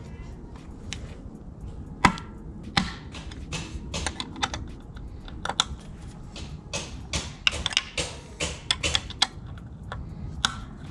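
Irregular metallic clicks and clinks of a hex key working the bolts on a bicycle's crank arms as they are loosened.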